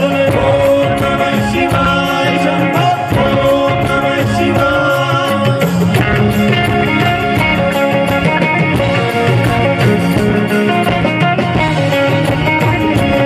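Live stage music through a PA: a man singing into a microphone over a backing band, continuous throughout.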